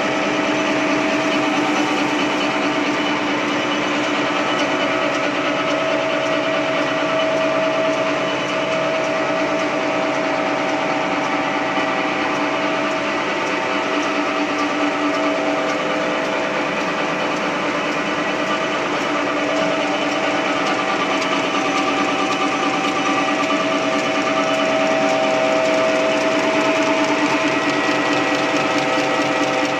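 XY OQ 7000A 300 mm table napkin folding machine running steadily, feeding tissue paper through its rollers: an even mechanical whir with several held whining tones.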